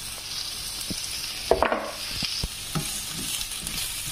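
Diced potatoes and serrano ham frying in a pan with a steady sizzle. A few knocks and scrapes, the loudest about a second and a half in, as a frozen cube of tomato concentrate drops in and a spatula stirs.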